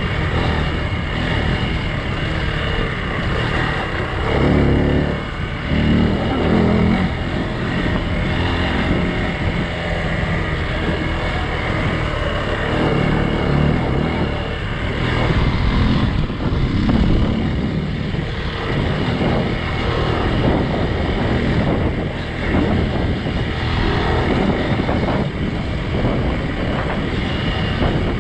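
Hero XPulse 200's single-cylinder four-stroke engine running under varying throttle while the motorcycle is ridden off-road, its revs rising and falling, with wind noise on the microphone.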